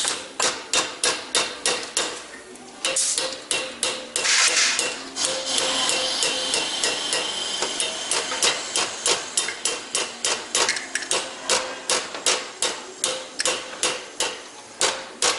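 Hammer blows on the valves of a VW 1.8T (AWP) cylinder head, about three knocks a second, driving the bent valves back straight so the springs can come off. A short pause comes about two and a half seconds in, and a steady hiss runs under the knocks for several seconds after it.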